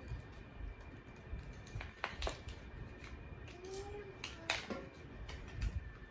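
Hands handling small plastic items such as a memory card and its packaging, giving a few sharp clicks about two seconds in and two more a little past the middle, over quiet room noise.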